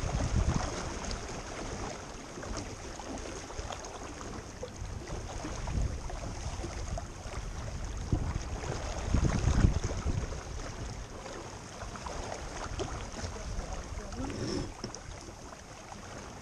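Small boat under way on the water: a continuous wash of water along the hull, with wind buffeting the microphone in low gusts about half a second in and again around the middle.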